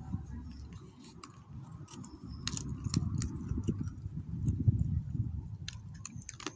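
A beagle chewing raw chicken bone: irregular sharp crunches and cracks as the bone breaks between its teeth, over a low rumble.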